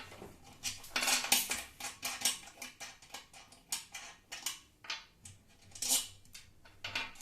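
Irregular clinks, clicks and rattles of small metal parts and tools being handled while assembling a router table, busiest about a second in and again near six seconds.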